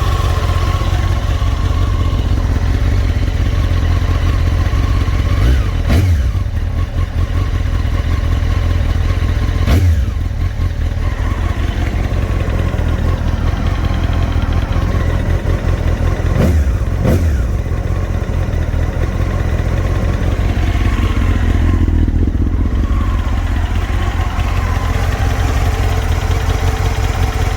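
Honda CBR954RR inline-four motorcycle engine running, with four quick throttle blips, the last two close together; the owner blames its knocking on piston slap and scoring in the AluSil cylinders. The sound cuts off suddenly at the end.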